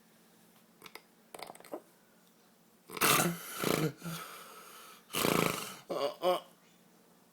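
A man snoring loudly in his sleep: a run of separate, harsh snores beginning about three seconds in, two close together, then three more about two seconds later.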